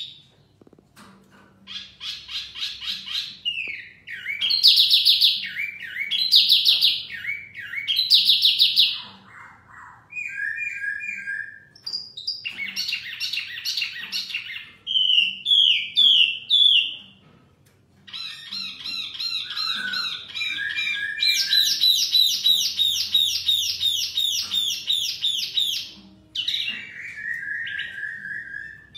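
Caged songbirds, a wambi mini and a poksay (laughingthrush), singing back and forth in loud, varied phrases of fast trills, repeated notes and whistles, with short pauses between bouts and a long run of rapid repeated notes near the end.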